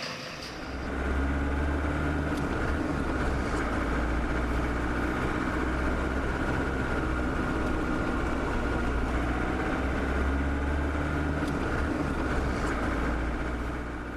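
Steady low drone of a car's engine and tyres while driving along a city street, heard from inside the moving vehicle, starting about a second in, with a few faint ticks.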